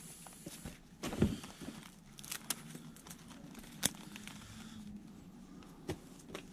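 Paper and cardboard rustling as hands sort through papers and envelopes in a cardboard box, with scattered light clicks and a soft thump about a second in.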